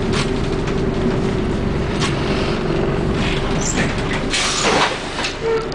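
Scania N113DRB double-decker bus's diesel engine running under way, heard from inside the passenger deck: a steady engine drone with road noise and intermittent body rattles. A brief loud hiss comes about four and a half seconds in.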